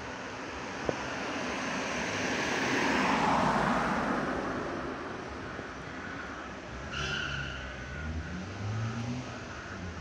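A car passing by on the street, its road noise swelling to a peak about three seconds in and fading away. An uneven low hum follows in the second half.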